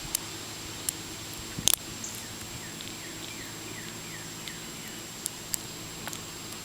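Lock picks and tension wrench working the pin stack of a Brooks padlock that is gummy inside with oil and lubricant: a few sharp, scattered clicks as pins are pushed and set, the loudest about two seconds in.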